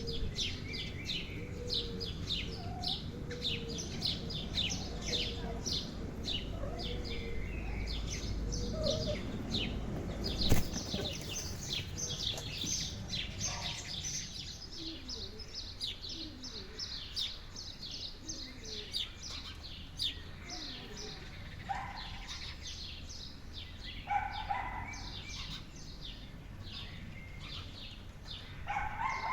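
Small songbirds chirping in a rapid, continuous stream of short, high chirps, over a low background rumble. There is one sharp knock about ten seconds in.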